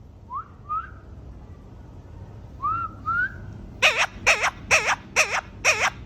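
Indian ringneck parrot giving two pairs of short rising whistles, then a run of five loud calls with a wavering pitch, about two and a half a second.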